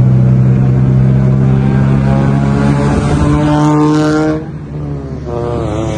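Straight-piped exhaust of a Toyota Corolla (E170) as the car drives by under acceleration: a loud exhaust note that climbs in pitch, then drops off sharply at about four seconds.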